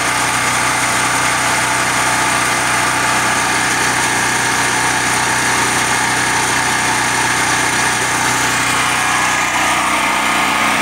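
Firman H07552 portable generator's single-cylinder engine running steadily on natural gas through a conversion kit, with its gasoline supply shut off.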